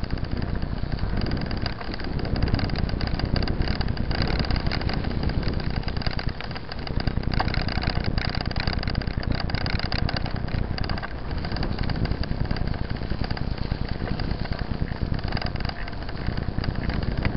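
Steady rumble and rapid rattling of a mountain bike rolling along a wet gravel dirt road, easing briefly a few times.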